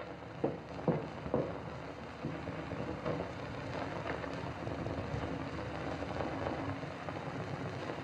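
Three sharp knocks in the first second and a half, then the steady hiss and crackle of a worn 1930s optical film soundtrack.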